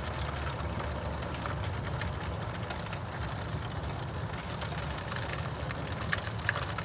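Mackerel frying in hot oil in an aluminium-foil tray, sizzling with scattered small crackles and pops, a couple of sharper pops near the end. A steady low rumble runs underneath.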